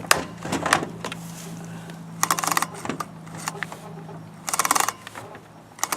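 Chainsaw chain being pulled by hand around a newly fitted bar to check its tension, the links clicking over the bar nose and sprocket in three short rapid bursts after a couple of single clicks. The chain runs round freely, showing the tension is right.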